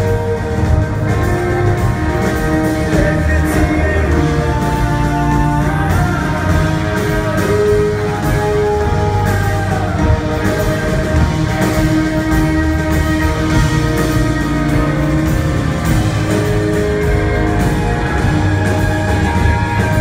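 A live band plays an instrumental passage on violin, electric guitars and a drum kit, with no singing. The music is steady and loud, made of long held notes with a few sliding pitches.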